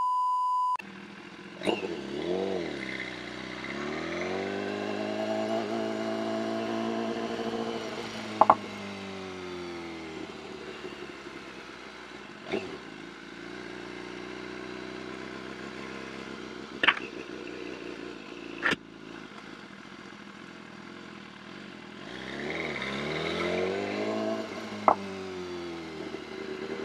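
A steady test-card beep that cuts off under a second in, then a motorcycle engine at low parking-lot speed: the revs rise as it pulls away, hold steady, then rise and fall again near the end. A few sharp clicks stand out over the engine.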